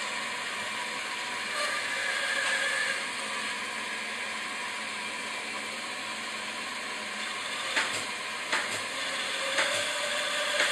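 Vertical band saw running and cutting through a wooden board, a steady whirring hiss that gets a little louder about two seconds in and again near the end. A few sharp knocks sound over the last three seconds.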